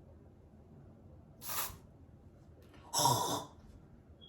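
Two short breathy mouth noises made by a person: a hiss about a second and a half in, then a louder, partly voiced burst about three seconds in.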